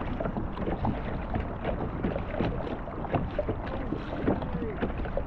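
Kayak paddling: a double-bladed paddle dipping and splashing in the water with water sloshing around the hull, in a steady run of irregular small splashes.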